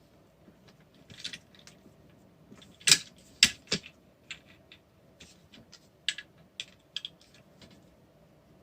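Scattered small clicks and taps of hard plastic and metal from a screwdriver and a shock being worked on a small RC truck kit's plastic chassis while a mounting screw is driven in, with two sharp clacks about three seconds in.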